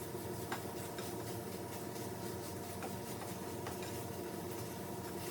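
A steady hum with faint, scattered ticks while a pan heats on high on the stove.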